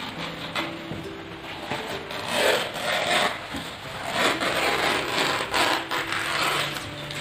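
Kitchen knife slicing a fresh banana leaf along its midrib: the blade scrapes and the leaf rustles in a few rough strokes, starting about two seconds in.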